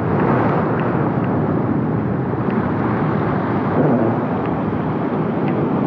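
Loud, steady rushing noise with a few faint clicks scattered through it.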